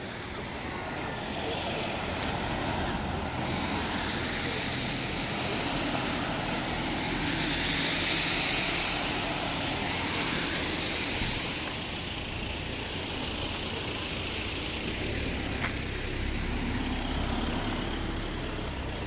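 Car tyres hissing on a wet road as traffic passes, swelling to loudest about eight seconds in and then fading. Near the end a car's low engine rumble comes in close by.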